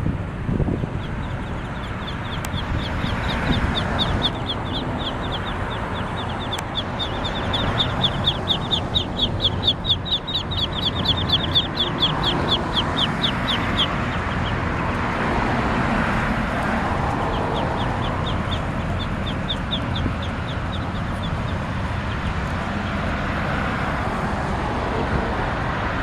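Ducklings peeping: long runs of rapid, high, short peeps, about five a second, that pause and start again.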